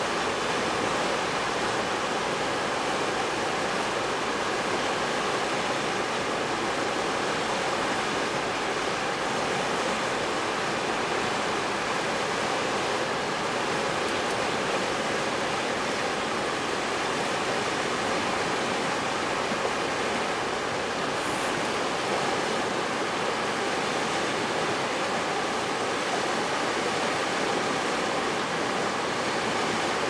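River water rushing past steadily, an even hiss of flowing water.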